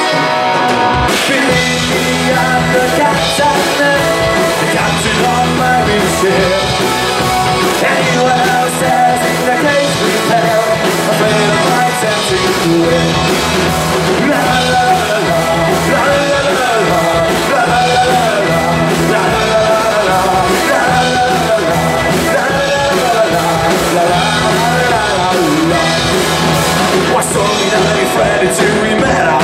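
Live band playing a rock song on accordion, guitars and drums, with a male singer's voice over it.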